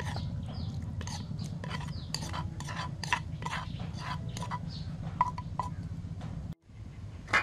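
A metal spoon scraping and clinking against the inside of a clay mortar in quick repeated strokes, over a steady low hum. The strokes stop suddenly near the end.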